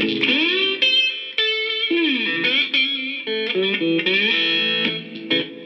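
Electric cigar box guitar played through a small amplifier: a plucked riff in which several notes glide up and down in pitch.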